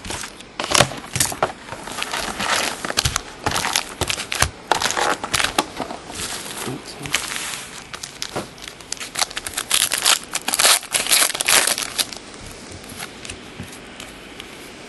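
Foil trading-card pack wrappers crinkling and crackling as the packs are handled and opened: a run of irregular sharp crackles that stops about twelve seconds in, leaving only faint room hiss.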